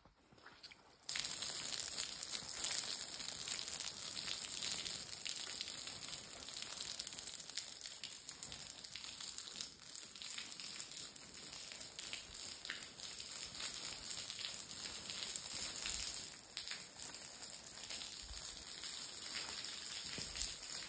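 Water spraying from a garden hose onto a freshly poured concrete slab: a steady hiss that starts suddenly about a second in.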